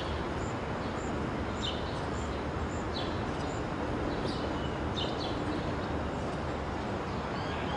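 Outdoor ambience: small birds chirping over a steady low background noise, with short high chirps about twice a second and a few scattered lower calls.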